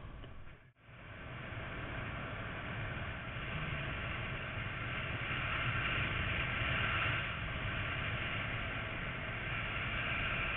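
Wind rushing over an action camera's microphone in paraglider flight: a steady rushing noise that drops out for a moment just under a second in and grows stronger in the middle.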